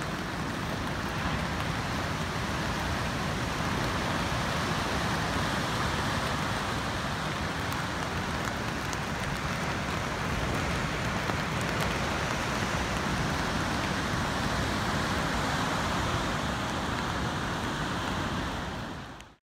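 Steady roar of heavy, rough surf breaking against rocky shore. The sound fades out quickly just before the end.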